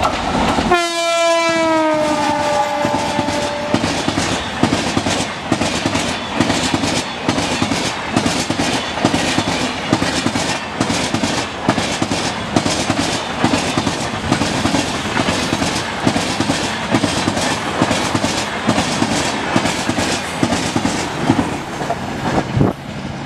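Electric locomotive's horn sounding about a second in for roughly three seconds, its pitch dropping as the locomotive passes. Then the Kurla Express's LHB coaches rush by at high speed, with a steady, rapid clickety-clack of wheels on the rails.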